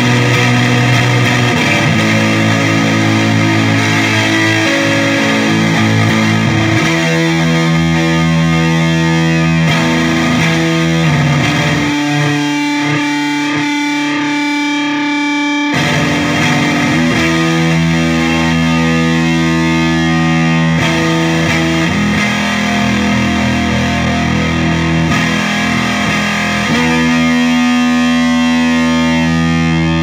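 Electric guitar played through an EarthQuaker Devices Acapulco Gold distortion pedal, switched on: heavily distorted, slow held chords that change every few seconds. About halfway through comes a short stretch of higher notes without the low end before the heavy chords return.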